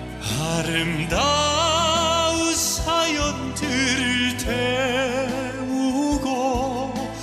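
A male vocalist singing a Korean ballad into a microphone over instrumental accompaniment, holding long notes with a wide vibrato.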